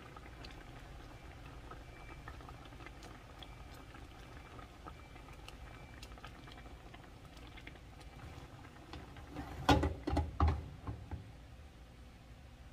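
Mung beans simmering in a pan as they are stirred and mashed with a plastic ladle: soft bubbling with light scrapes and taps. About ten seconds in come a few loud clunks as the pan is shifted on the gas stove's grate.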